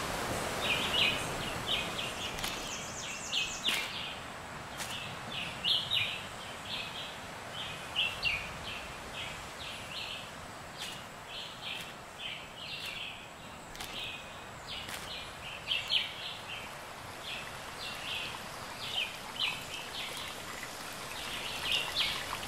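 Small birds chirping with short high calls, several a second, over a steady outdoor background hiss.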